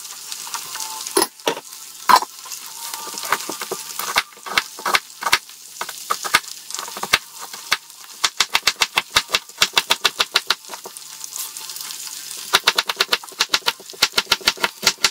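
Kitchen knife slicing a carrot on a cutting board: sharp knocks of the blade on the board, scattered at first, then in quick runs of about five or six a second in the second half. A faint steady hiss of frying is behind them.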